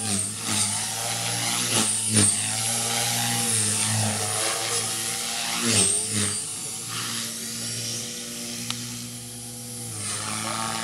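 Rave 400 radio-controlled helicopter flying 3D aerobatics: a steady pitched motor-and-rotor whine that swoops down and back up about two seconds in and again about six seconds in as it flips and turns, easing slightly near the end.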